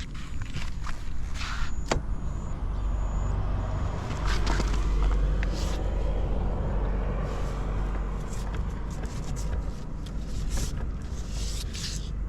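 Honda Motocompo's small 49 cc two-stroke single-cylinder engine running, getting louder for a few seconds in the middle, with light clicks and handling noises over it.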